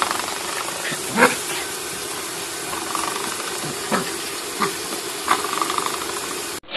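Spring door stopper twanging a few times as a puppy paws and bats at it, the loudest strike about a second in, over a steady hiss.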